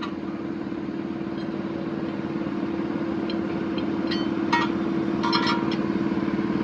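An engine idling with a steady low hum that slowly grows a little louder, with a few short high-pitched sounds about four to five and a half seconds in.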